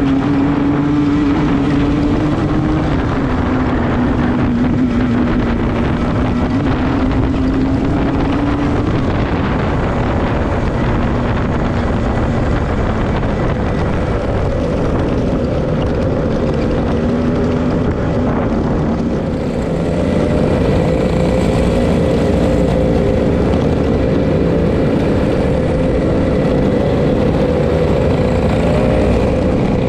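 On-board sound of a racing kart's two-stroke engine at full racing revs, its pitch dropping and climbing again through the corners, with wind noise on the microphone.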